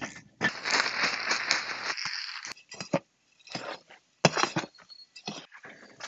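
Coco peat and perlite potting mix hissing as it is poured into a wheelbarrow for about two seconds, then rustling and scraping in short separate bursts as it is stirred by hand. The loudest burst comes a little past four seconds in.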